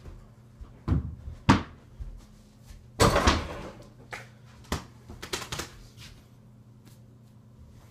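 A mini basketball knocking against an over-the-door hoop's backboard and the door, then bouncing on the floor: a run of sharp knocks, the loudest about three seconds in with a short ringing tail, and a quick flurry of lighter bounces past the five-second mark.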